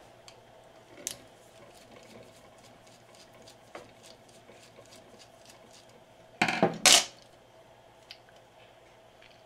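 A screwdriver and small metal parts clicking faintly while the motor housing screws of a 1970 Fisher 501 turntable are worked loose. Two sharp metallic clinks come close together about six and a half seconds in.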